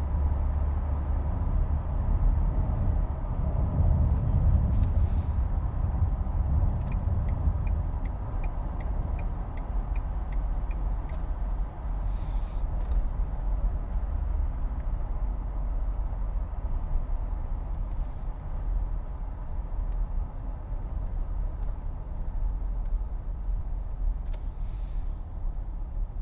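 Steady low road and engine rumble of highway traffic on the Beltway. A run of about a dozen even ticks, roughly two and a half a second, comes in a few seconds in, and three short hissing whooshes pass through.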